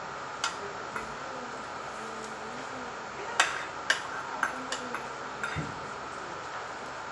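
Metal spoon and fork tapping and scraping against a plate in scattered sharp clicks, most of them bunched in the second half, the loudest about three and a half seconds in.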